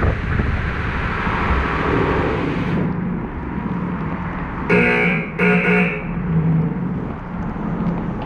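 High-pressure water spray hissing over the car in an automatic tunnel car wash, cutting off about three seconds in. The wash machinery keeps running, and about five seconds in two short horn blasts sound in quick succession.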